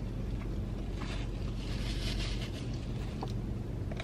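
Chewing a mouthful of crispy chicken wrap, soft wet crunching that is strongest about a second to two and a half seconds in, over a steady low hum in a car cabin.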